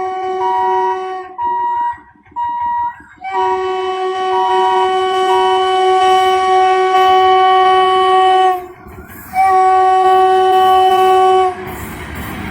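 WDP-4D diesel locomotive's multi-tone air horn sounding in several loud blasts: a few short ones, then a long blast of about five seconds, a brief break and a two-second blast. Near the end the horn stops and the rushing noise of the train passing rises.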